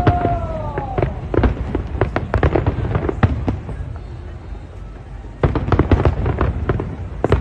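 Aerial fireworks bursting: a rapid series of bangs and crackles, with a falling whistle at the start. The bursts thin out around the middle, then come thick again a couple of seconds before the end.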